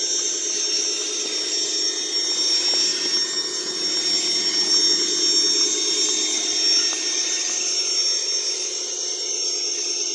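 Electric motor and gears of a Traxxas TRX-4 Sport RC rock crawler whining steadily as it crawls, a little louder in the middle, over a constant high-pitched hiss.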